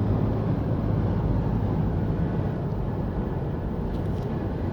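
Strong sandstorm wind rumbling steadily on the microphone.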